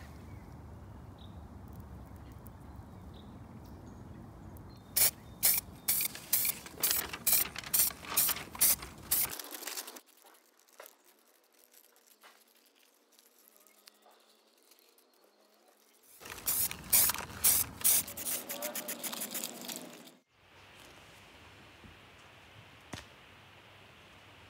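Aerosol spray paint can in use: two runs of short, sharp bursts, about three a second, one starting about five seconds in and one about sixteen seconds in, with quiet between.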